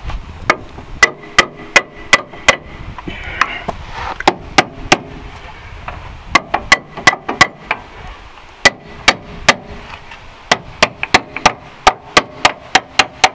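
Hammer blows on steel, driving an anti-seize-coated mounting bolt through the lower control arm bushing of a 2009 Chevrolet Aveo. The blows come in several quick runs of about three a second, some with a brief metallic ring, the longest run near the end.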